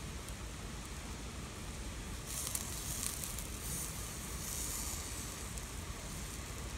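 Cheese-topped shiitake mushrooms grilling on a wire grate over glowing charcoal, with a steady background hiss and a louder burst of high sizzling from about two seconds in until about five seconds in.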